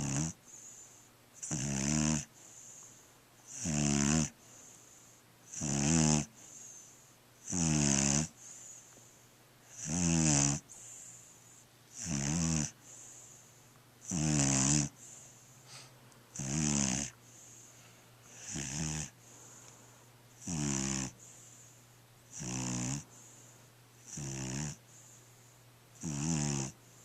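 Small dog snoring in its sleep: a rattling snore on each breath, about one every two seconds in a steady rhythm, with a softer hiss of breath between snores.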